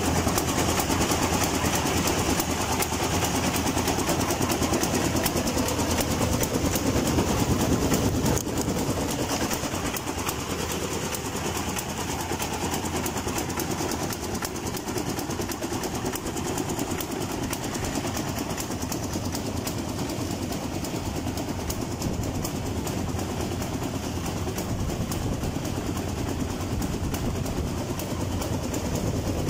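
Motor-driven sugarcane juicer running steadily: its gear train and crushing rollers clatter with a dense, rapid ticking while cane is pressed through. It gets a little quieter about eight seconds in.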